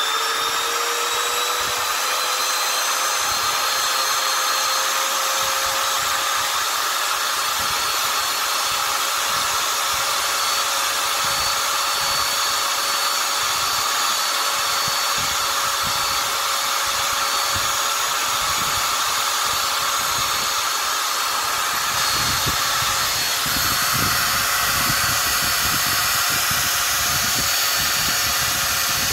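Makita RT0700 trimmer's electric motor running steadily at full speed with a whine. About three-quarters of the way through, a lower rumble joins in.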